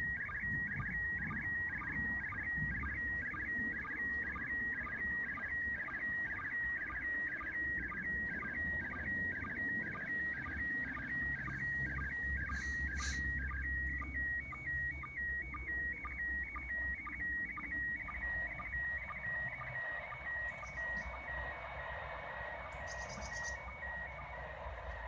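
ISS slow-scan television (SSTV) downlink in PD120 mode played from a Uniden handheld scanner's speaker: a continuous warbling image tone near 2 kHz broken by short sync dips about twice a second, over FM hiss. Static grows in the last third of the passage.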